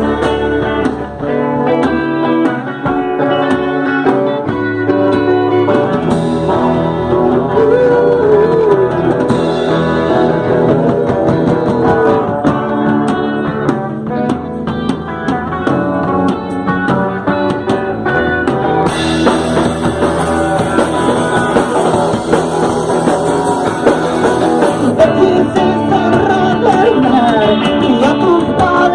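Rock music being rehearsed, with guitar and a singing voice throughout, the sound growing brighter and fuller about two-thirds of the way in.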